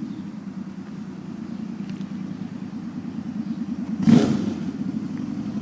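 Suzuki Boulevard C50T's V-twin engine idling with a steady, even pulse. About four seconds in there is one brief louder burst.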